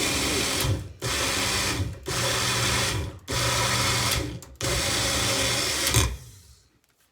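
Electric blender motor running in short pulses on a thick frozen pineapple and ice cream mixture. It is switched off and on about four times, then stops with a thump about six seconds in and winds down.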